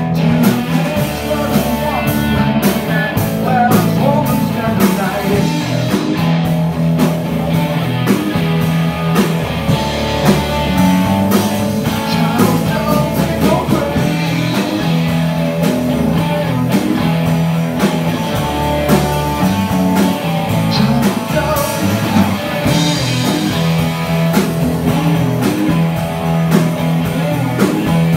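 Live rock band playing: electric guitar over bass and drum kit, loud and continuous.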